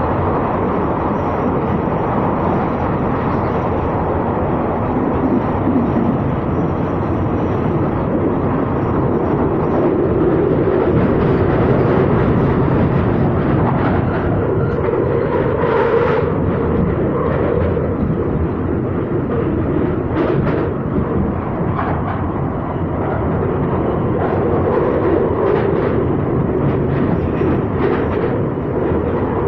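Inside a London Underground 2009 Stock Victoria line train running at speed through a tunnel: a loud, steady rumble of wheels on rails and motors, with a few short sharp sounds from the wheels in the second half.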